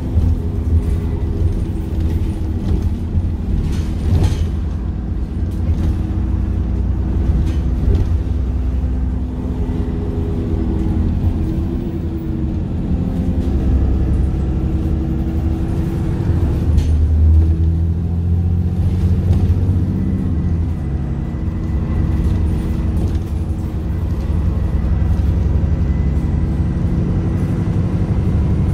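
Dennis Trident II / Enviro400 double-decker bus on the move, heard from inside the passenger saloon: the Cummins ISC diesel and ZF Ecomat 5HP500 automatic gearbox give a steady low rumble whose note shifts in pitch as the bus accelerates and changes speed, with a few short knocks from the body.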